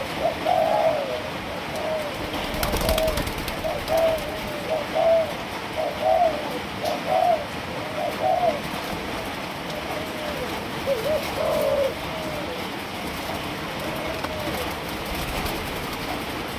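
Three-month-old Malaysian spotted doves cooing, one short coo phrase after another, thickest in the first half, over a steady hiss.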